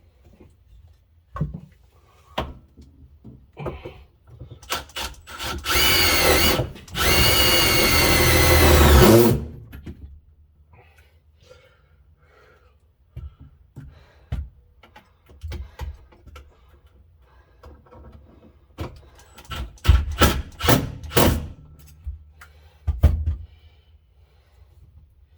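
Power drill driving self-drilling screws into the cab's sheet metal: two runs of a couple of seconds each, about six seconds in, the motor's whine shifting in pitch as each screw goes in. Scattered clicks and knocks of handling tools and parts come before and after.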